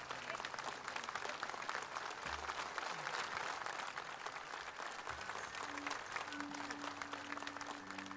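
Large seated audience applauding, a dense even patter of many hands clapping. About six seconds in, a single low held note comes in under the clapping.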